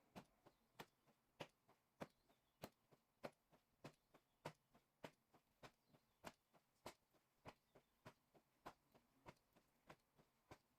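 Rhythmic slapping on the body in paida self-slapping therapy: sharp, even slaps, strong and weak in turn, a little over three a second, faint.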